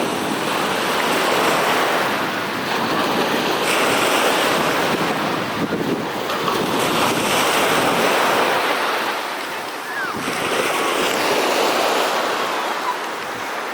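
Sea waves washing, with wind rushing on the microphone; the noise swells and eases every few seconds.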